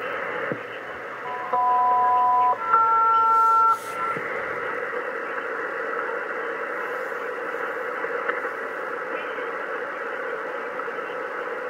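Hiss from a Kenwood TS-450S shortwave transceiver on upper sideband, tuned to an HF air traffic control frequency. About a second and a half in, two steady two-note tone chords of about a second each sound back to back, typical of a SELCAL call from the ground station to alert one aircraft. The receiver hiss then carries on alone.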